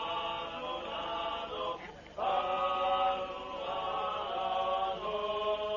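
A choir chanting in long held notes that change pitch slowly. There is a brief break about two seconds in, and then the chant resumes.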